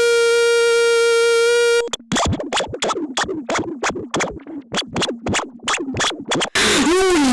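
Loud electronic, synthesizer-like sound effect: a long steady held tone, then a quick stuttering run of short chopped blips, each dropping in pitch, then a warbling tone that wavers up and down near the end.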